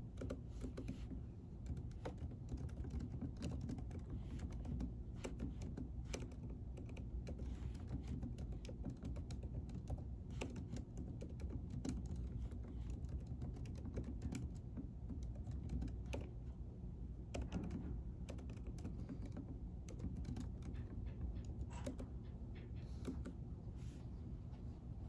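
Typing on a computer keyboard: quick, irregular key clicks throughout, over a steady low room hum.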